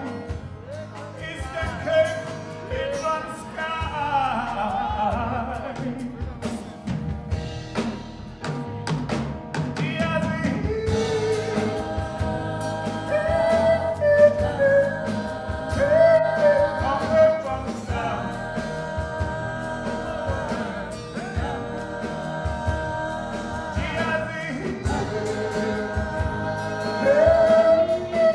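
Live gospel band performing: a man sings lead over acoustic guitar, electric bass and keyboard, with other voices singing alongside him in harmony from about halfway.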